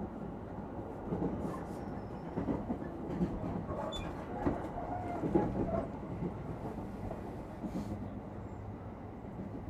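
Inside a Japanese electric commuter train running between stations: steady rumble of wheels on rail and running gear, with scattered clacks and rattles over the track.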